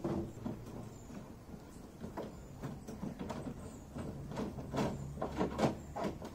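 Irregular plastic clicks and knocks from a Thule roof box's mounting knob and clamp being worked by hand to tighten the claw onto the roof bar, coming more often after about four seconds.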